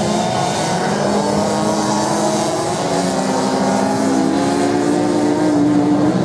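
Several motorcycle engines running hard as the bikes race on sand, their notes overlapping and shifting to new pitches about midway.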